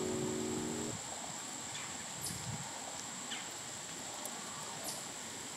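Soundtrack music stops about a second in, leaving quiet outdoor ambience: a steady hiss with a thin, steady high tone and a few faint ticks.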